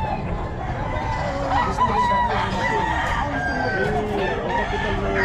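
Roosters crowing and clucking, several calls overlapping, over a steady low background noise.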